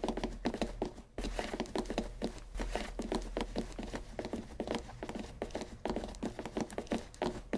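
Cartoon walking sound effect: a rapid, even patter of light footsteps, several a second, with a brief break about a second in.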